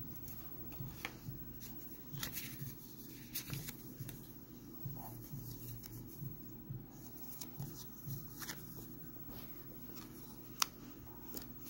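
Paper and card being handled: rustling with a string of light clicks and taps, and one sharper click near the end, over a low steady hum.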